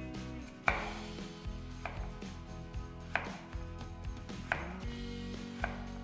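Chef's knife chopping through butternut squash onto a wooden cutting board: five sharp strikes, about one every second and a quarter, the first the loudest.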